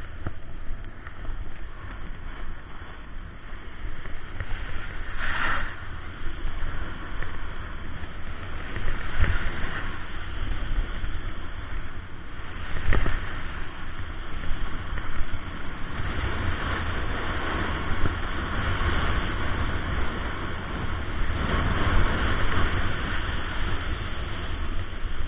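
Snowboard sliding and carving down hard-packed piste snow, its edge hissing and scraping in swells as it turns, with wind buffeting the microphone underneath. Two short, louder scrapes stand out about five and thirteen seconds in.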